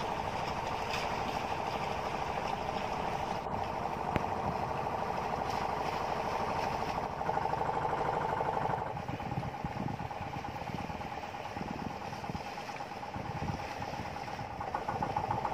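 Outrigger fishing boat's engine running steadily, its sound easing slightly about nine seconds in.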